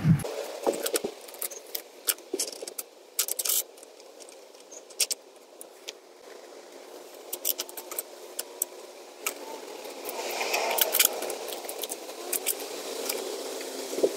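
Metal washers and nuts clinking and clicking as they are handled and fitted onto eye bolts through an aluminium plate: scattered sharp clinks, busier about ten seconds in.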